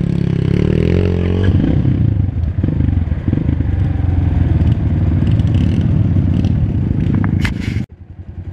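Trail motorcycle engine running close by at low revs, with a brief rise in revs about a second in and some clatter from the bike. Near the end come a few sharp knocks, then the sound cuts out briefly.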